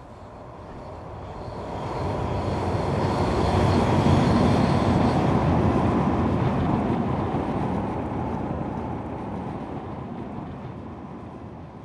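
Elevated light-rail train passing over a viaduct: a rumble that builds to a peak about four seconds in and slowly fades away, with a faint steady whine above it.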